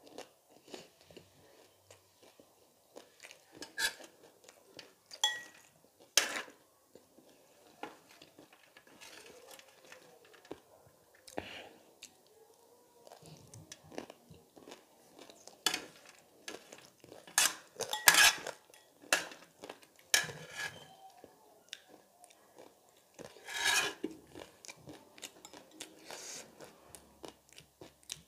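Close-miked eating: crunching and chewing of crisp puri shells and dry noodle bits, with a metal spoon clinking and scraping against the tray and the glass bowl in irregular sharp clicks.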